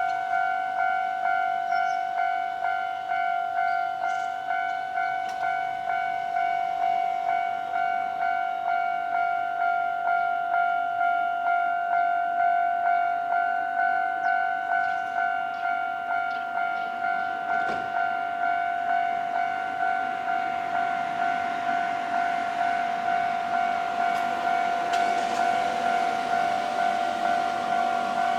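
Japanese railroad-crossing warning bell ringing steadily, an evenly repeated electronic ding about one and a half times a second. Near the end the noise of an approaching train builds up under it.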